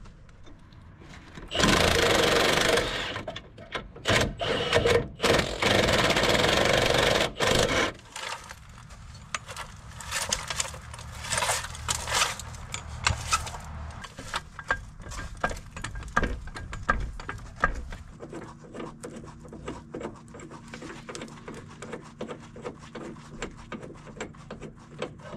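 A power tool runs in two bursts, the first about a second and a half long and the second about three and a half seconds, followed by a long stretch of light clicks and clanks of hand tools on the truck's front suspension.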